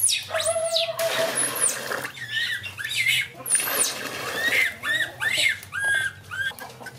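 A pet monkey giving many short, high calls that rise and fall in pitch, over the splash of water being poured into a plastic tub.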